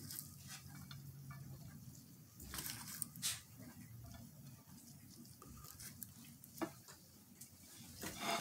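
Faint taps, clicks and rustles of gloved hands scattering chopped green onion around a plate, the loudest clicks about three seconds in and again near the end, over a faint low hum.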